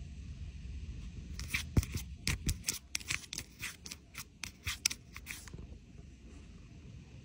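A cat's paw and claws tapping and scratching against a phone held up to its face: a quick, irregular run of sharp clicks lasting about four seconds, starting a little over a second in, over low rumbling handling noise.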